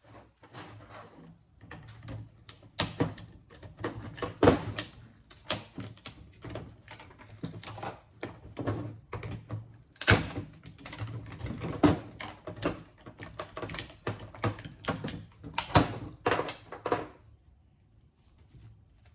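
Circuit board being broken apart and its MOSFETs cut off with a hand tool: a dense run of irregular clicks, cracks and knocks that stops about 17 seconds in.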